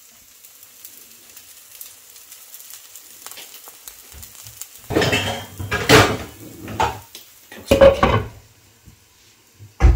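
Uthappam batter sizzling faintly on a hot dosa griddle, then from about five seconds in a run of loud clattering and scraping of metal utensils on the pan, with a sharp thump near the end.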